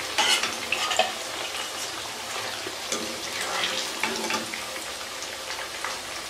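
Eggplant slices sizzling and crackling in hot oil as a wire skimmer scoops them out of the pan, with a few short knocks of the skimmer against the pan.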